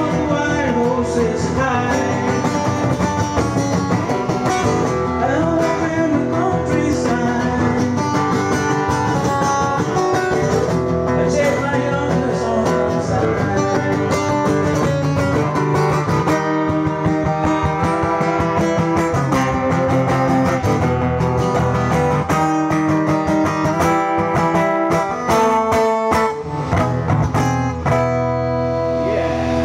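Acoustic guitar strummed and picked in a live solo performance.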